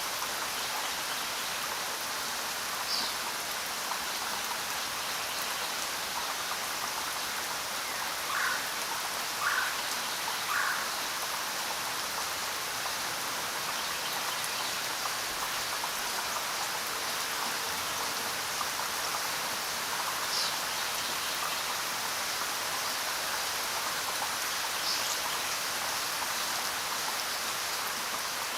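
Steady rain falling, an even hiss with no let-up. A few brief, sharper sounds stand out above it, three close together about eight to eleven seconds in.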